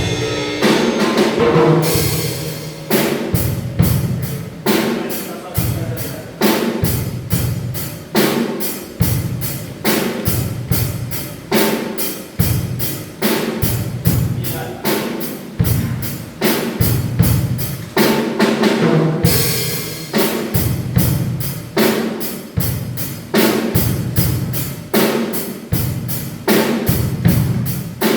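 Drum kit played in a steady beat: bass drum and snare strikes, with cymbals ringing over them from about two seconds in.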